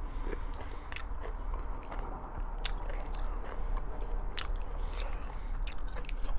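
Close-up chewing of food, with wet mouth clicks and smacks coming irregularly, several times a second, over a low steady hum.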